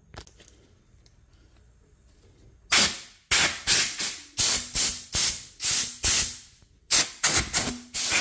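Aerosol spray paint can spraying in short bursts of hiss, about three a second, starting about a third of the way in, with a brief pause near the end.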